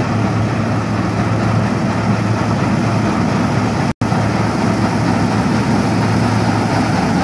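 New Holland combine harvester running steadily as it cuts standing wheat, a low engine hum under the noise of its harvesting machinery. The sound drops out for an instant about four seconds in.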